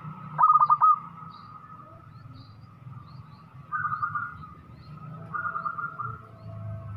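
Zebra dove (perkutut) cooing: a loud run of four or five quick staccato notes about half a second in, then shorter phrases about four and five and a half seconds in. Faint high chirps of small birds repeat throughout over a low steady hum.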